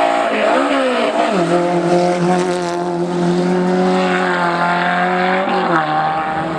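Race car engine running at high revs through a tight bend; the revs dip and pick back up about a second in, then hold steady, and change again near the end.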